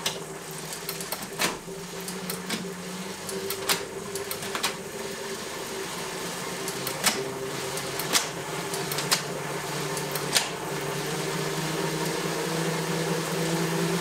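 Wahoo KICKR ROLLR smart trainer, a bike's rear tyre spinning on its roller: a steady whirring hum that grows louder as the rider shifts to harder gears and speeds up toward about 20 mph. Several sharp clicks of the gear shifts come through along the way.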